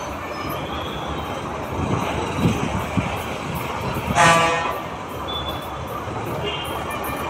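Bus-stand traffic noise, vehicle engines running, with one short blast of a vehicle horn a little over four seconds in, the loudest sound; a couple of dull thumps shortly before it.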